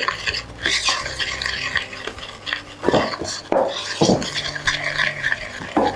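Wooden spoon stirring a dry flour mix in a glass mixing bowl: scraping and rustling, with a few knocks of the spoon against the glass.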